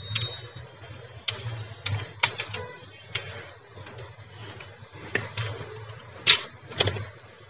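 Irregular sharp clicks and snaps of combination pliers cutting and stripping electrical wire at a plastic modular switch board's terminals, the loudest about six seconds in, over a low steady hum.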